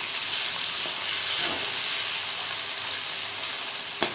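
Chopped potato, onion, peas and carrot sizzling in oil in an aluminium kadai as they are sautéed and stirred with a metal slotted spoon, with a steady frying hiss and faint scrapes. A sharp knock comes near the end.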